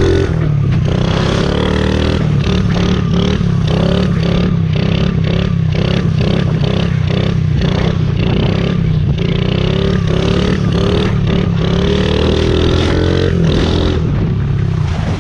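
Honda CRF50 pit bike's small single-cylinder four-stroke engine running under load while being ridden, revving up in repeated rising sweeps, with many short knocks and rattles throughout.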